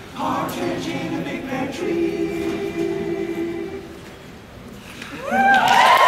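All-male a cappella group singing a held closing chord that fades out about four seconds in. About a second later the audience starts cheering, with whoops and the start of applause.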